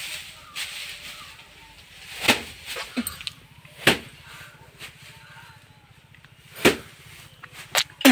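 Bundles of paddy being slammed against a wooden plank to thresh out the grain: a sharp strike every one to three seconds, about five in all, with straw rustling between.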